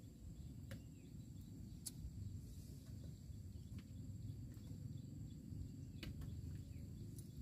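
Faint rural outdoor ambience: a steady low rumble with thin, steady high insect chirring over it and a few faint ticks.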